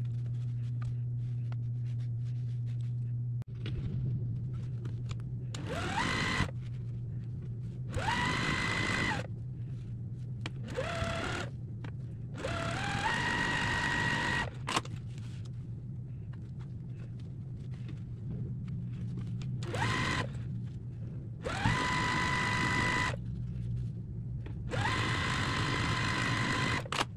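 Juki sewing machine stitching quilt block seams in about seven short runs, the motor whine rising in pitch as it speeds up and then holding steady before stopping. A steady low hum sits underneath throughout.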